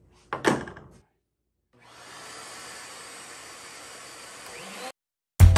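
A short knock under a second in. After a gap, an electric motor runs steadily for about three seconds with a low hum and an even rushing noise, then cuts off suddenly. Loud drum-led music comes in right at the end.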